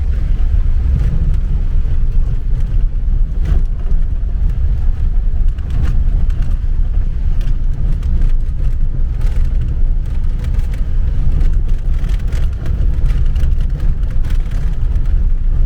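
Truck driving off-road: a steady low rumble of engine and tyres, with scattered light clicks and rattles.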